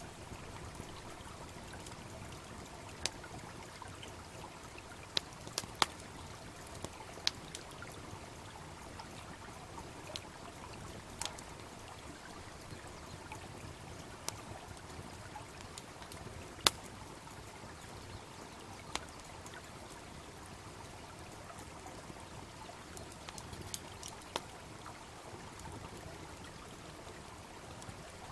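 Wood campfire crackling, with scattered sharp pops at irregular intervals, over the steady rush of a babbling brook.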